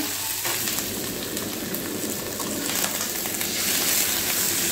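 Prawns and squid sizzling in hot oil in a wok, with clinks and scrapes of a metal wok spatula against the pan. The sizzle grows louder near the end as sauce is poured in.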